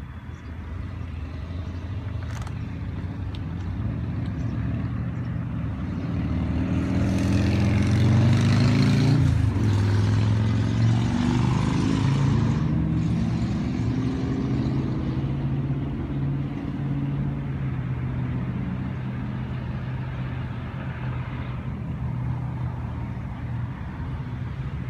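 A motor vehicle engine running, with a steady low hum. It swells louder, with a wide rush of road noise, from about seven to thirteen seconds in, as a vehicle goes by.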